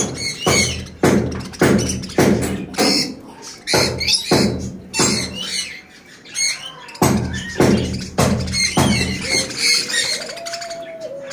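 Background music with a steady beat of about two thumps a second, with budgerigars chirping and warbling over it.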